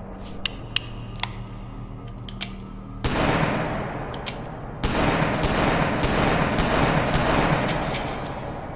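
.44 revolver sound effect: a few sharp clicks, then two loud shots about two seconds apart, each trailing off in a long echo.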